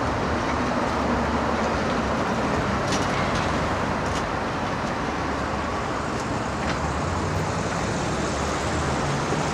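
Steady road traffic noise: a constant rushing hiss over a low vehicle hum.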